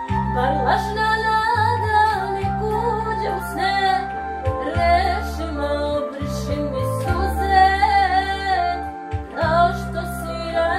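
A woman singing a Serbian song to an electronic keyboard accompaniment. Sustained chords and a low bass hold each note, then change every second or two, under a wavering sung melody.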